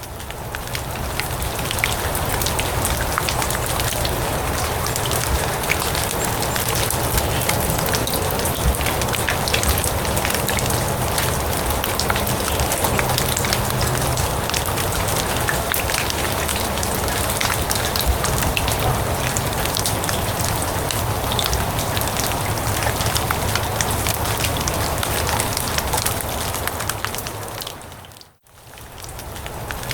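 Steady rain falling on grass, a dense patter of drops. About 28 s in it briefly fades nearly to nothing and then comes back.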